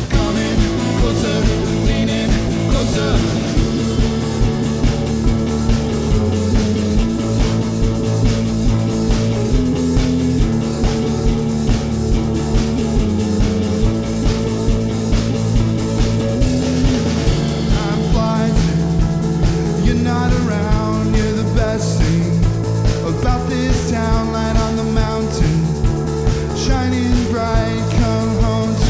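Rock band playing, with a steady beat.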